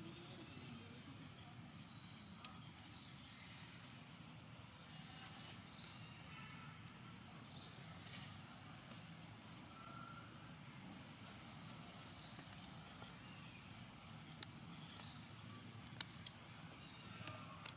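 Quiet outdoor forest ambience with short, high, downward-sweeping chirps repeating every second or two, and a few sharp clicks.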